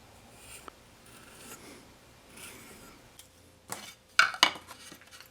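Tools and wood being handled on a workbench while measuring and marking: a few soft scraping strokes, then three sharp clacks in the second half, the last two loudest.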